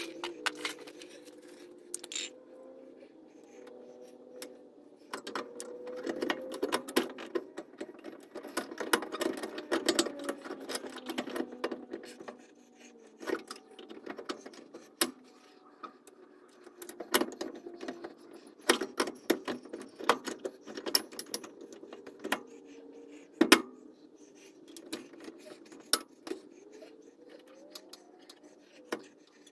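Metal clinks, taps and clatter of rear disc brake parts and hand tools being handled and fitted during reassembly of the brake at the wheel. The clinks come irregularly, busiest in the first third, with one sharper knock a little past twenty seconds in, over a steady background hum.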